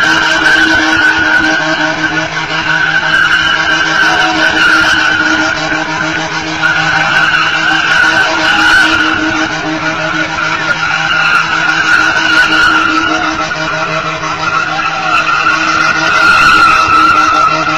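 Car doing donuts: the engine is held at steady high revs while the spinning tyres squeal and skid on the pavement without a break.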